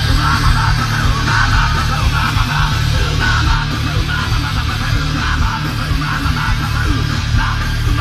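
Thrash metal band playing live at full volume: distorted electric guitars, bass and fast drums in a dense, unbroken wall of sound.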